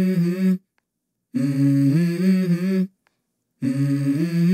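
A voice humming the same short phrase that steps up in pitch, repeated three times, each cut off abruptly into dead silence.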